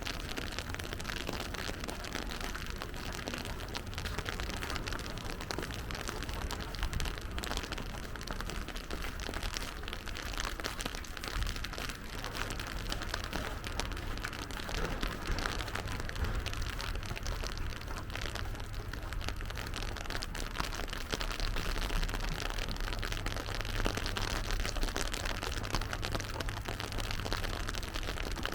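Steady rain pattering on wet surfaces, a dense patter of small drops over a continuous low rumble.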